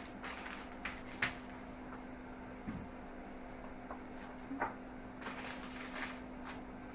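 Baking paper rustling and a few soft knocks as tart dough is spread out on it, over a steady low hum.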